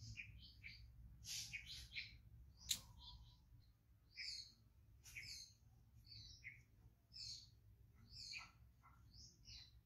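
Small birds chirping faintly: short high chirps, repeating every half second to a second. There is one sharp click a little under three seconds in.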